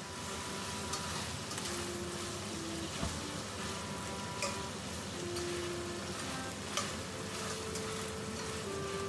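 Chicken pieces sizzling as they are stir-fried in a stainless steel pan, with a metal spatula scraping and knocking against the pan a few times.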